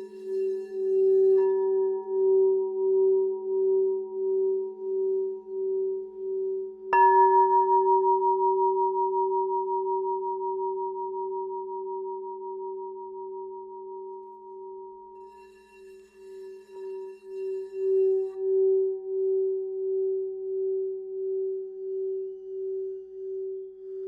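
Singing bowl sounding one steady tone with a pulsing wobble as it is played around the rim, over a lower held tone. About seven seconds in it is struck once, rings out loud and slowly fades, then the rim-played swell builds back up about two-thirds of the way through.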